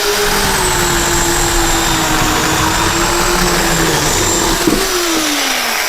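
Portland 9-amp, 14-inch corded electric chainsaw running at full speed, a steady motor whine and chain clatter; the pitch sags near the end.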